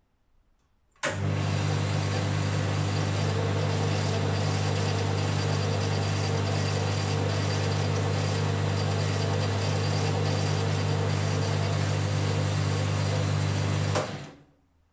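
1963 Boxford AUD lathe running under power: its electric motor starts about a second in and runs steadily with a strong low hum and a mechanical whirr, with no clunks or knocks. It cuts off near the end when the stop button is pressed and winds down within half a second.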